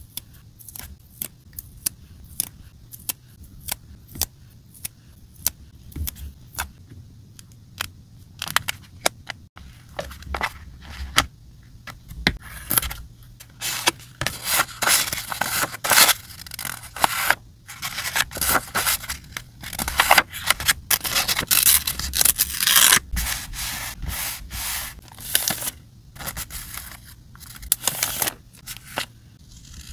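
Close-up paper-crafting handling sounds: paper pieces and a plastic-sleeved sticker pack being picked up and moved, rustling and crinkling, with small taps and clicks from metal tweezers. Scattered light ticks give way about twelve seconds in to dense rustling that lasts about ten seconds, with another burst near the end.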